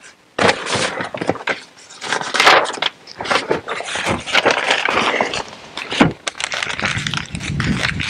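Irregular scraping and crackling of steel wire being twisted tight around a split log to bind its pieces back together, with sharp clicks throughout.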